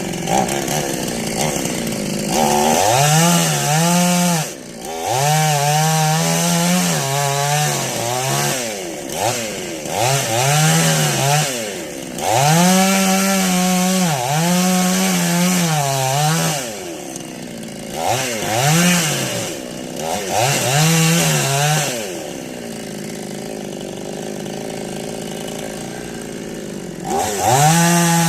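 Two-stroke chainsaw cutting wood, its engine revving up and easing off again and again. It settles to a lower, steady running for several seconds near the end, then revs up again.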